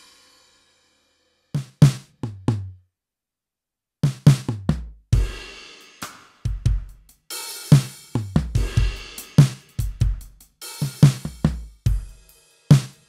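Drum-kit sounds triggered from a Roland SPD-SX sampling pad: a pause, a few scattered hits, then from about four seconds in a steady drum groove.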